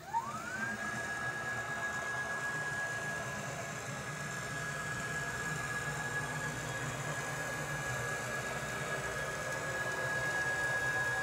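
Stepper motor driving the 6040 CNC router's Y-axis ball screw on a long linear move. Its whine rises in pitch over the first second as the gantry accelerates, then holds one steady high tone, with a lower mechanical whir of the screw and carriage beneath.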